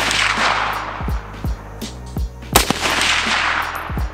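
Shots from a BM59 semi-automatic rifle firing 7.62 NATO ball: the echo of one shot rolls off in the first second, and another shot cracks about two and a half seconds in, followed by its own long echo. Background music with a steady beat runs underneath.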